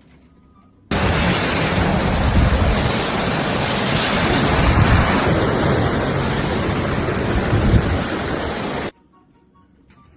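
A loud, steady rushing noise that starts suddenly about a second in and cuts off abruptly near the end.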